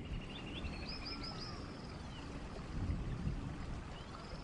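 Birdsong over a low background hiss: a short phrase of high chirps about a second in, repeated almost identically near the end.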